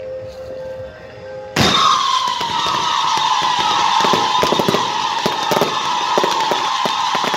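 Cart-mounted fireworks fountains ignite about a second and a half in with a sudden blast. They then keep up a loud, steady high whistle that sags slightly in pitch, over a hissing roar of sparks and many sharp crackling pops.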